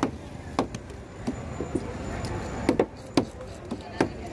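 Large knife chopping red snapper into pieces on a thick wooden board: about ten sharp knocks of the blade on the wood, unevenly spaced, some in quick pairs.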